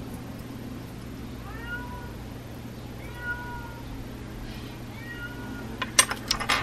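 A cat meowing outside, heard faintly through an open upstairs window: three drawn-out meows that rise and fall in pitch, over a steady low hum. Near the end come a few sharp clicks, the loudest sounds.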